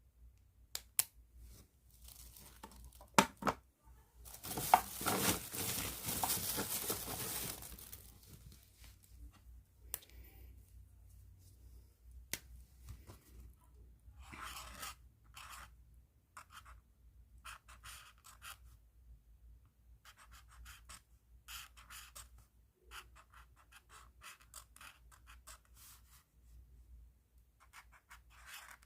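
A few sharp clicks and several seconds of loud rustling, then a long run of short, scratchy pen strokes on paper, each a fraction of a second, with brief pauses between them.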